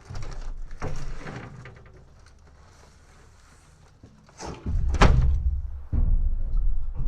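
Junk being tossed onto a trailer: a few thumps and clatters, the loudest about five seconds in, with a quiet stretch in between.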